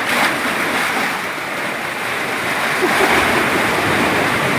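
Rough sea surging and slapping against the legs of a fishing platform: a steady wash of surf noise.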